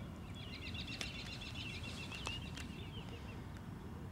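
A small songbird singing a rapid twittering song of many short chirps that fades out before the end, over a steady low rumble, with two light clicks in the middle.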